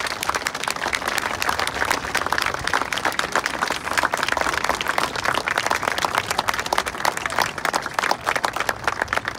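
Outdoor crowd applauding, many pairs of hands clapping in a dense steady patter that eases off a little near the end.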